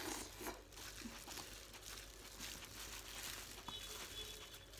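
Hands in thin disposable plastic gloves mixing a dressed salad, the gloves crinkling with soft, irregular rustling and small ticks.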